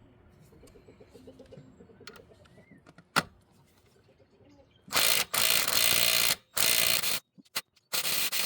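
Socket wrench working a 13 mm alternator mounting bolt: faint rapid ratchet clicking, one sharp click about three seconds in, then from about five seconds loud, harsh stretches of noise that start and stop abruptly.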